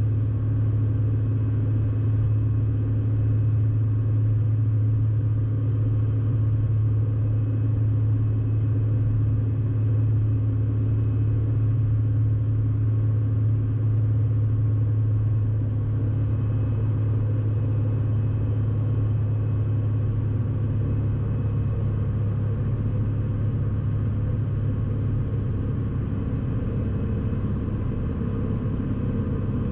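Steady drone of a Piper PA46 Malibu's single piston engine and propeller at approach power on final approach.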